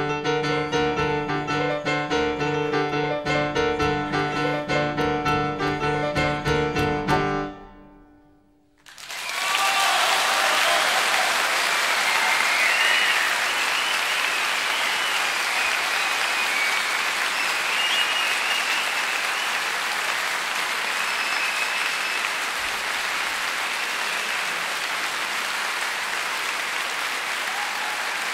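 Solo acoustic piano playing fast, insistent repeated chords that stop about seven seconds in, then after a brief hush a concert audience breaks into sustained applause at the end of the piece.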